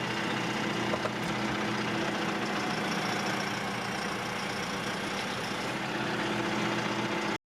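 Vehicle engine idling steadily with an even low drone.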